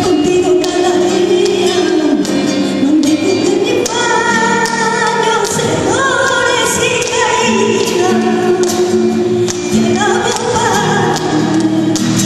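A woman singing a worship song into a microphone, with strummed nylon-string acoustic guitars accompanying her.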